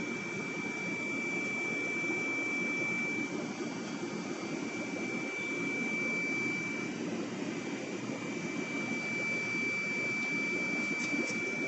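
Aquarium equipment running: a steady low hum and rush from the tank's air pump and sponge filter, with a thin, steady high-pitched whine that fades partway through and comes back near the end.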